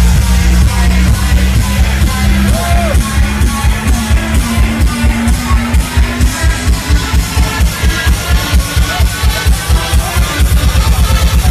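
Loud DJ-set dance music over a big sound system, heard from within the crowd. Heavy sustained bass at first, then a build-up of drum hits that starts about halfway through and speeds up toward the end.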